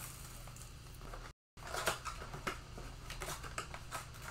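Trading cards and a card pack wrapper being handled: faint rustling and small scattered clicks. A short gap of silence cuts in a little over a second in.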